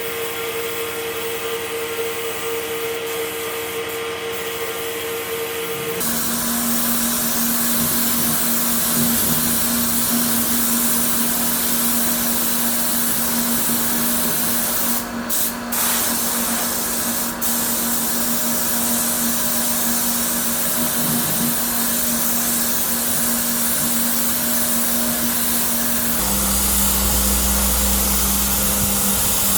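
Workshop power tools running steadily, with a motor hum and hiss. The sound changes abruptly about six seconds in and again near the end.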